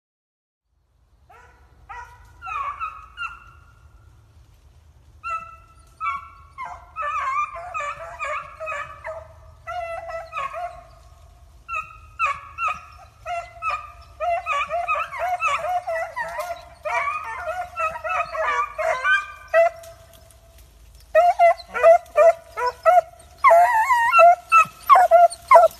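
A pack of beagles baying and howling on a rabbit's trail, several voices overlapping. It starts about a second in and gets louder near the end.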